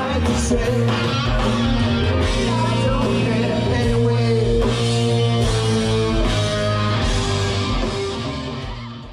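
Live rock band playing, with singing over a steady bass. The music fades out near the end.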